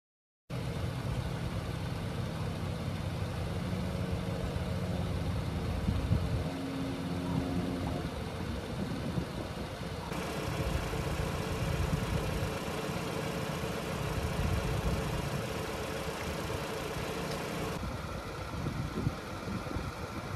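Car engine idling steadily, starting abruptly after a moment of silence. The background changes suddenly about ten seconds in and again near the end.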